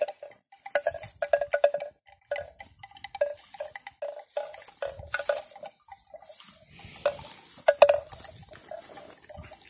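Bell hung on a water buffalo's neck clanking in quick rattling runs as the animal moves and grazes, loudest about eight seconds in.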